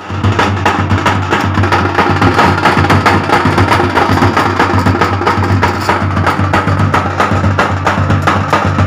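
Loud, percussion-heavy music with a fast, steady drumbeat.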